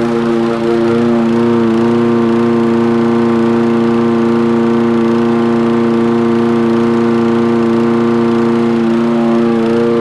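Home-built remote-controlled lawn mower running steadily, a constant motor hum, its tone shifting slightly about nine seconds in.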